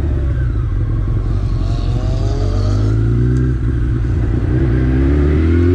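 Honda CBR919 Fireblade's inline-four engine pulling as the motorcycle accelerates, its pitch rising, dipping briefly at a gear change a little past halfway, then rising again.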